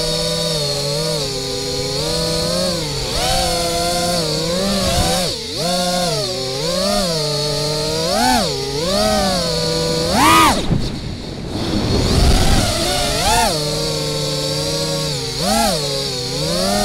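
FPV quadcopter's brushless motors whining, the pitch rising and falling again and again with the throttle. About ten seconds in the pitch climbs sharply and then cuts out for about a second before the motors spin back up.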